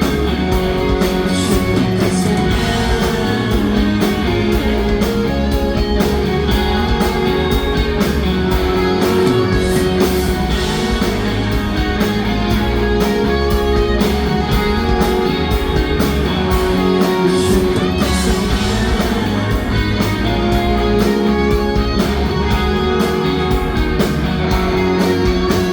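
Rock band playing an instrumental passage with no vocals: electric guitars over a steady drum beat.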